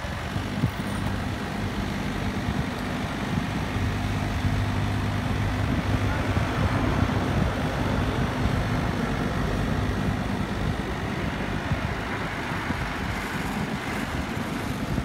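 Kubota mini excavators' diesel engines running steadily, a low hum under continuous construction-site noise; the hum eases off about two-thirds of the way through.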